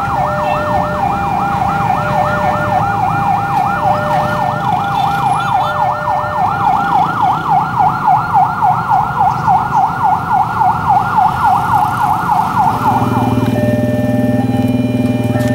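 Railway level-crossing warning alarm: a loud electronic warbling tone, sweeping up and down about three to four times a second. It stops abruptly about 13 seconds in, and a steady low hum follows.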